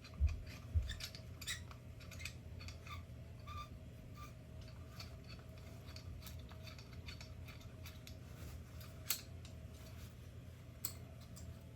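Scattered clicks, taps and small knocks of a metal and plastic GU10 track light fixture being handled and taken apart by hand, with two heavier knocks right at the start. A steady low hum runs beneath.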